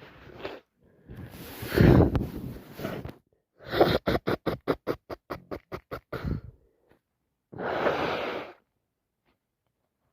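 A woman with a wet head cold sneezing: a drawn-in breath building to one loud sneeze about two seconds in. It is followed by a quick run of about fifteen short breathy pulses, and a second noisy breath near the end.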